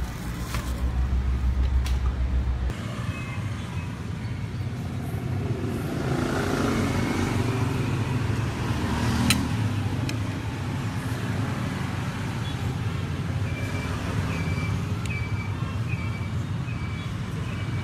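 Steady street traffic rumble, with a sharp click about halfway through and a run of short, high beeps near the end.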